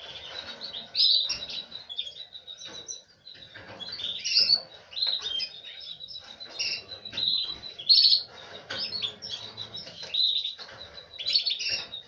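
Canaries chirping and twittering in quick, irregular bursts, with a thin high tone held steadily underneath.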